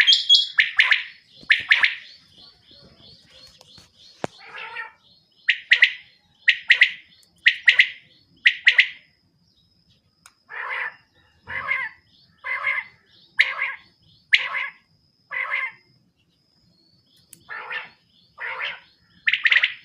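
Quail calling: a series of short calls about one a second, in runs with brief pauses between them.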